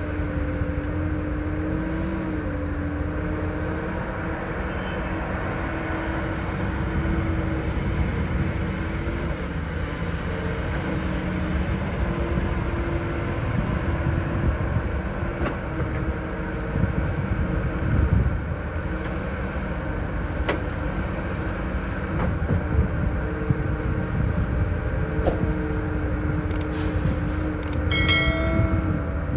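Heavy diesel earthmoving machinery running steadily: an engine hum that wavers a little in pitch over a low rumble, with a few sharp knocks and clanks. Near the end comes a brief high-pitched tone.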